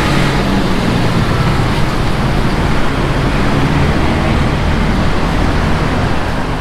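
Steady road noise of a moving vehicle: a low engine hum under a loud, even rush.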